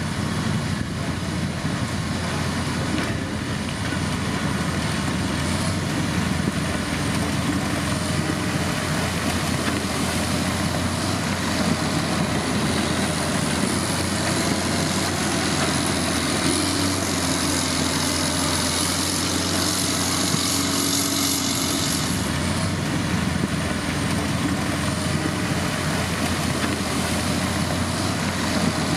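Heavy diesel road-construction machinery (motor grader or road roller) running steadily, with a thin high whine of wandering pitch on top. Extra hiss swells for several seconds past the middle.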